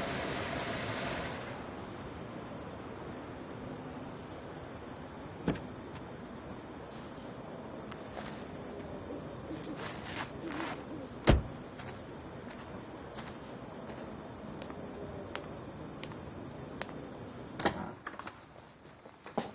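A car door is opened and then shut with one loud thump about eleven seconds in, followed by a run of light, evenly spaced footsteps and a house door being handled near the end, over a faint steady chirping of crickets. A louder rushing noise cuts off about a second and a half in.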